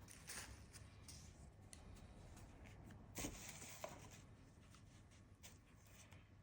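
Faint paper-handling sounds: soft rustles and brushing sweeps of paper, the loudest just after three seconds, with a few light clicks between them.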